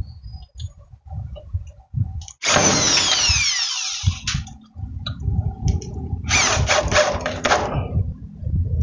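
Screws being driven into the metal slide-rail bracket of a desk's keyboard tray, with tool and handling noise. There is one long stretch of screwing about two and a half seconds in and a second about six seconds in, with light knocks between.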